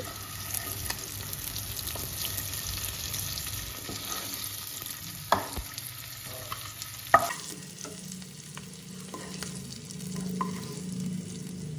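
Boneless chicken pieces sizzling in hot oil in a nonstick kadai while a wooden spatula scrapes them up and lifts them out into a bowl. Two sharp knocks stand out, about five and seven seconds in.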